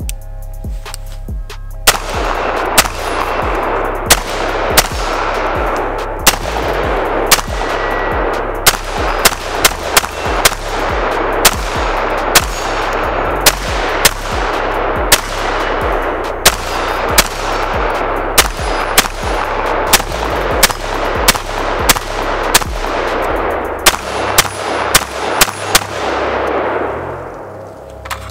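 Custom AR-15 rifle with a 16-inch barrel and a SureFire WarComp muzzle brake firing a long string of single shots, about two a second: the first magazine through the new build, fired to check that it functions.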